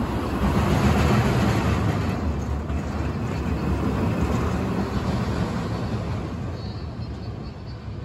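An Arrow Dynamics steel roller coaster train, running empty on test, travels through its interlocking loops with a low, rushing rumble of wheels on steel track. It is loudest about a second in and fades away near the end.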